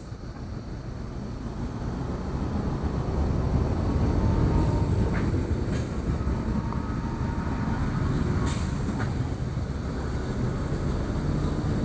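A cat purring close to the microphone: a low, steady rumble that swells over the first few seconds and holds, with a few faint clicks.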